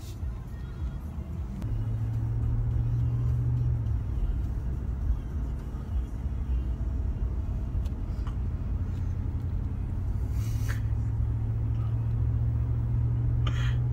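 Steady engine and road drone of a Ram 1500 pickup heard from inside its cabin while driving, a low hum that gets a little louder about two seconds in.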